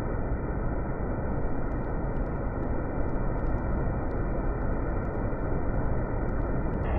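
Steady rush of a mountain waterfall pouring down a rocky gully. It sounds muffled, with the highs cut away.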